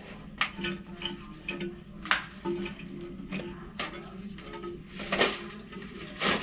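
Irregular sharp plastic clicks and rattles, about one every second or two, as a new toilet flapper is unpacked and handled.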